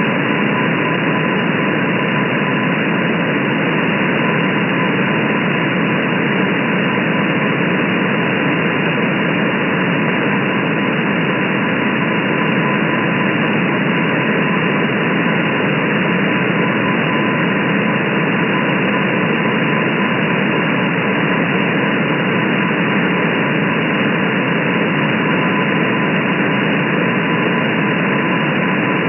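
Shortwave receiver static, a steady hiss with nothing above about 3 kHz, with a weak Morse code tone near 1 kHz barely showing through the noise: the M12 number station's CW signal on 10842 kHz received in USB.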